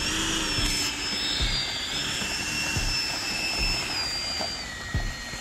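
Electric ducted fan of a Freewing A-4 Skyhawk 80 mm EDF model jet running at low throttle on the ground, a steady high-pitched whine. It rises a little about two seconds in and falls in pitch near the end as the throttle is eased back.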